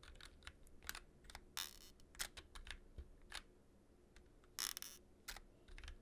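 Keys of a Drop Carina 60% hot-swap keyboard with an acrylic case being pressed one at a time: faint separate clicks, and twice a longer, rougher noise, about one and a half and four and a half seconds in. The presses test the plate, which creaks in one corner under heavy pressure.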